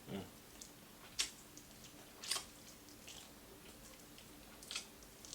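A person chewing crispy fried food close to the microphone, with three sharp crunches spread through the quiet chewing.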